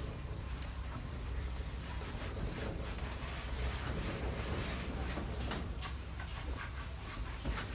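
Whiteboard eraser being rubbed across the board, a soft scrubbing noise, over a steady low hum.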